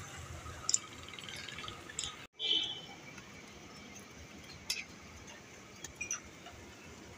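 Lachha parathas frying in oil on a large flat griddle, with a steady sizzle and a few sharp clicks of steel tongs against the parathas and the griddle. The sound cuts out for a moment about two seconds in.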